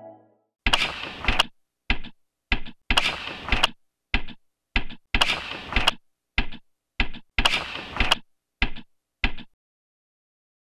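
An added mechanical-sounding sound effect: a longer swish followed by two or three sharp clicks, the group repeated four times at an even pace.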